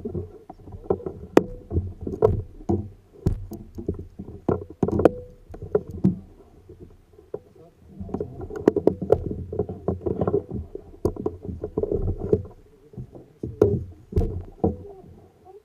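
Kayak on the water: water splashing and sloshing, with irregular knocks and clicks against the hull.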